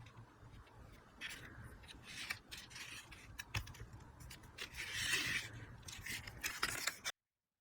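Hand work on cardstock: irregular scratchy strokes and scrapes, some short and one longer about five seconds in. The sound cuts off suddenly near the end.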